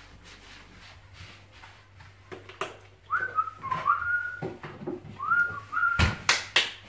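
A person whistling a tune in short phrases, each sliding up and then held, starting about three seconds in. Several sharp knocks come near the end.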